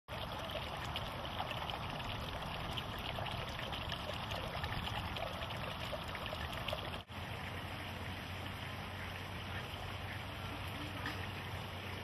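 Steady outdoor background hiss, like distant running water or wind. It drops out briefly about seven seconds in, and a low steady hum joins it after that.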